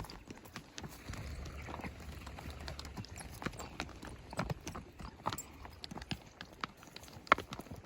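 Horse hooves striking the ground in an irregular clip-clop, the hoof strikes coming unevenly.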